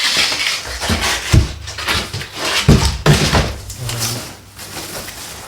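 Clunks, knocks and scraping as a large flat-screen TV and its metal wall-mount brackets are handled and fitted together, with several sharp knocks in the first three seconds.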